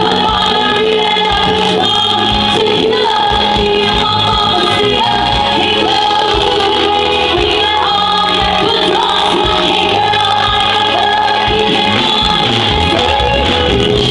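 Live band playing pop music with several female singers singing together, loud and continuous.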